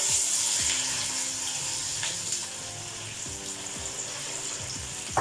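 Bitter gourd slices deep-frying in hot oil, a steady sizzling that is loudest as the slices go in and eases off over the next few seconds.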